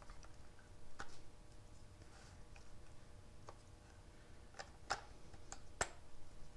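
Faint, scattered clicks and taps from a Makita cordless drill's plastic housing and parts being handled as the drill is put back together, about six in all, several close together near the end.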